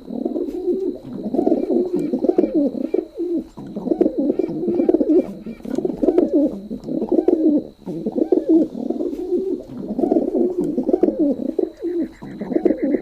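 Pigeon cooing over and over: low warbling coos in phrases about a second long, with short breaks between them.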